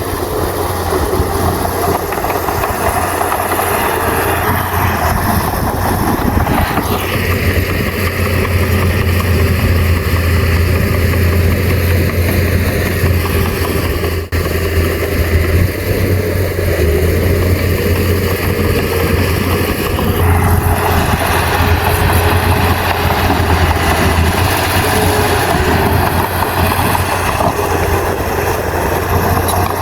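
Heavy diesel engine of earthmoving machinery running steadily with a strong low hum, under a dense noisy layer that thins for a stretch in the middle and then comes back.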